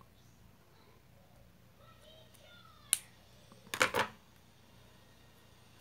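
Scissors snipping nylon beading thread: one sharp click about three seconds in, then a quick cluster of snips a second later, over quiet room tone.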